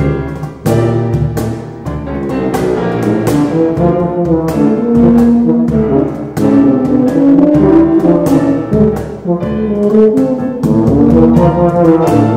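Two tubas playing a lively melody in tandem over a steady beat of cajon strokes and piano accompaniment.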